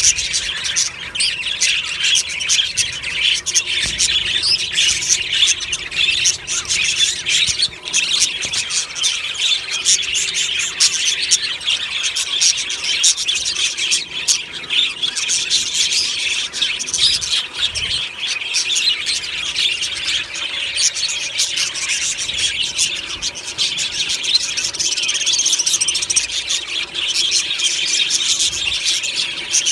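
A flock of budgerigars chirping and warbling together in an aviary, a dense, continuous chatter of many overlapping high calls.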